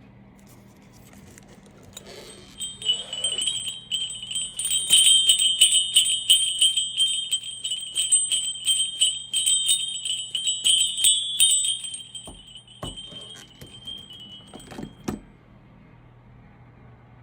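Solid brass sleigh bells jingling with a bright ring in a quick, dense run of strikes. They start about two seconds in, are loudest through the middle, and thin out to a few last jingles near the end.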